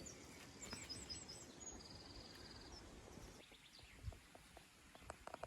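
Faint songbird chirps and a short rapid trill about two seconds in, over a quiet low background hum.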